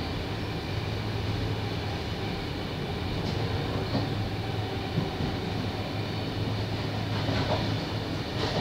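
Sydney Trains S set double-deck electric train running, heard from inside the carriage: a steady low hum and rumble with a few brief clicks scattered through it.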